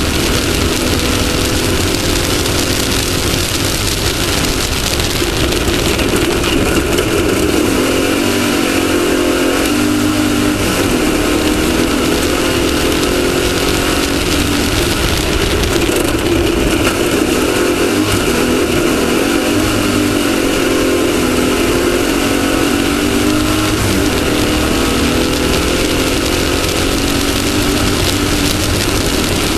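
Off-road race buggy's engine running hard under racing load, its revs rising and falling, over a heavy rush of wind and rattle from driving across rough terrain.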